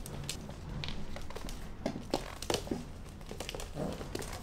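Scattered light clicks and taps on a wooden floor from Shiba Inu puppies moving about, their claws and paws on the boards.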